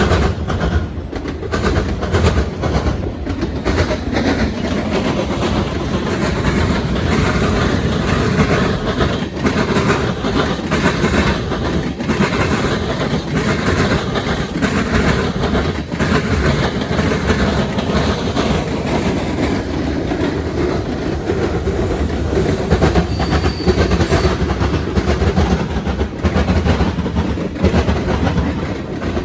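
Freight train cars rolling over railroad diamond crossings, the wheels pounding the crossing joints in a continuous loud clatter of irregular bangs over a low rumble, with wind buffeting the microphone.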